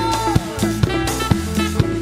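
Live band playing an Afro-Latin house groove, with drum kit, hand percussion and bass under a steady kick about twice a second. A long held high note slides down and ends about half a second in.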